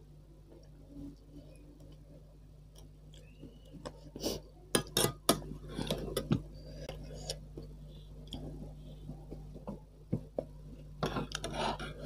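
A metal spoon and fork clinking and scraping against a stainless steel pot while eating. A run of sharp clinks comes about four seconds in, then lighter ones.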